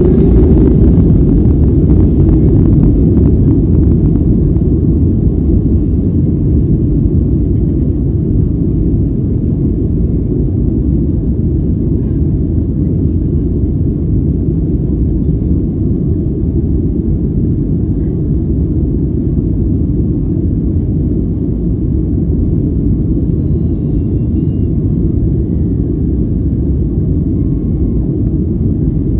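Jet airliner's engines heard from inside the passenger cabin as a steady low rumble. It is loudest in the first few seconds and eases slightly after that.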